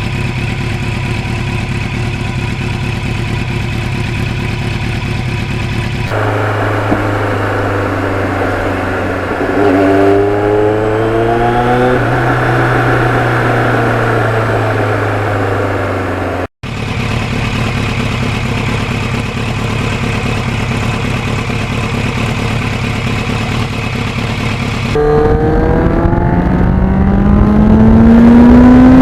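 Kawasaki GPX750R motorcycle's inline-four engine running while riding. It holds a steady note, then its pitch climbs as it accelerates, once about ten seconds in and again near the end. The sound changes abruptly twice in between.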